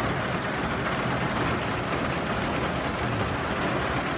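Hard rain hitting the roof and windows of a pickup topper, heard from inside the shell as a steady, dense hiss of countless drop impacts.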